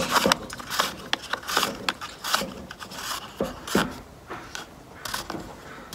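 Irregular clicks and scrapes of plastic and metal as the red side knob of a Craftsman electric chainsaw is turned and worked by hand to tension and lock the bar and chain.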